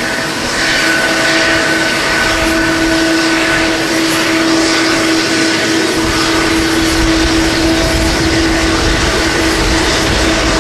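Boeing 777-300's turbofan engines running at taxi power: a steady whine of several tones over a broad jet rush. A deeper rumble grows about six seconds in, as the turning jet's engine swings toward the listener.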